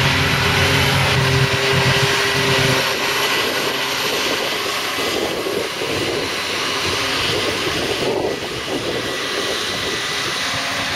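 Heavy farm machinery at work harvesting silage: diesel engines running with a steady high whine over them. The deep engine tone falls away about three seconds in, leaving a steady noisy drone.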